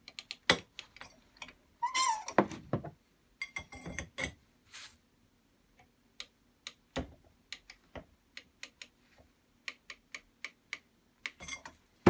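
Scattered sharp metal clicks and knocks from a steel bar levering a small bearing puller on a washing machine motor shaft, with a short creak about two seconds in. The creaking is the heat-fit pulley starting to give on its splined shaft.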